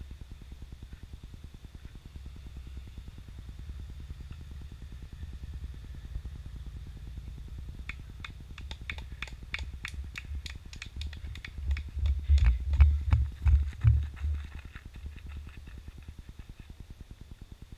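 A few people clapping steadily, about three claps a second, starting about halfway through and lasting some eight seconds, over a continuous low rumble of wind on the microphone. Heavy wind buffets on the microphone are the loudest sound, a little after the clapping begins.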